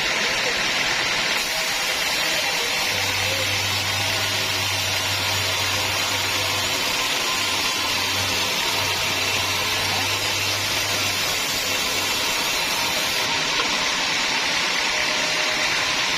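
Sawmill machinery running steadily, a continuous even hiss, with a low hum added from about three seconds in until near the end.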